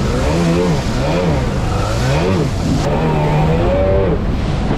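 Jet ski engine revving up and down several times as the craft rides over and jumps waves, holding steady for a moment about three seconds in before dropping off. Water and wind noise runs underneath.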